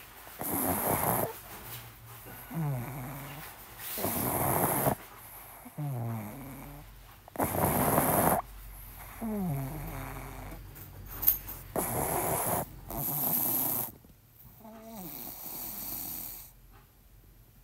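Loud snoring sounds in a slow breathing rhythm: harsh rasping snorts alternate with quieter breaths that slide down in pitch, one cycle about every three to four seconds.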